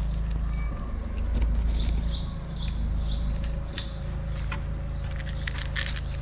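Small birds chirping in short high notes about twice a second, over a steady low rumble. Sharp clicks toward the end come from cats crunching dry kibble.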